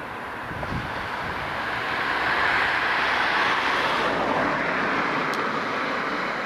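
A car passing by on the road, its tyre and engine noise swelling to a peak about halfway through and then fading away.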